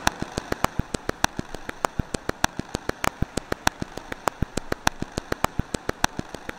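Glitchy, clicky electronic percussion loop: short sharp clicks at about eight a second, uneven in loudness, over a faint hiss. The loop is an audio loop chopped into minimum-length slices with minimum decay, so only the attack transients are left.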